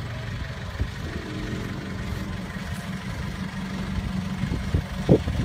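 Pickup truck idling with a steady low hum while its rear bed lift raises the bed; a short knock about five seconds in.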